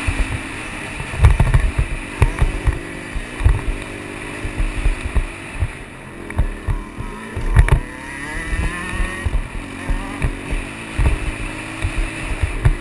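Dirt bike engine revving up and falling back again and again through the throttle and gear changes, heard from a helmet-mounted camera, with frequent low thumps mixed in.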